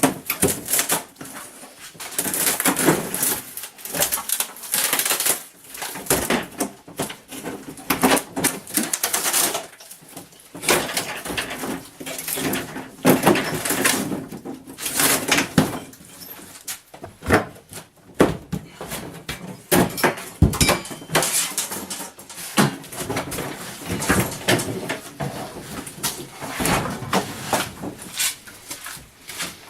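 Irregular knocking, scraping and creaking from hand demolition work, tearing out an old camper floor, with many sharp hits and short squeaks at uneven intervals.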